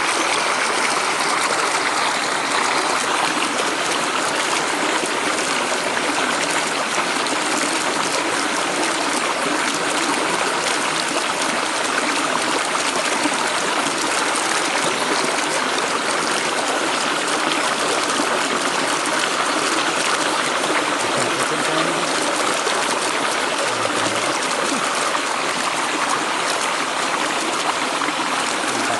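Shallow stream water rushing and splashing past a weedy bank close by, a steady, unbroken noise.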